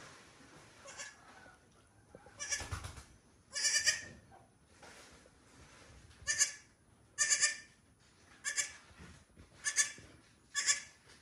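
Young goat kid bleating over and over: short, high calls, a faint one first and then about seven loud ones roughly a second apart.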